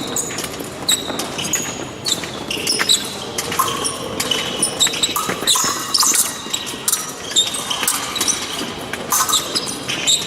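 Épée fencers moving on the piste during a live exchange: shoes squeaking and stamping, mixed with many short, high metallic rings of the blades striking each other.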